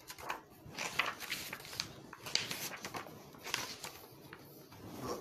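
Paper and a book being handled: pages and covers rustling and scraping in several short bursts.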